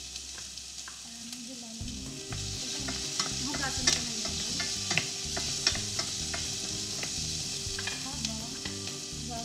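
Onion sizzling as it sautés in oil in a frying pan, a steady frying hiss, with scattered light clicks and knocks of utensils.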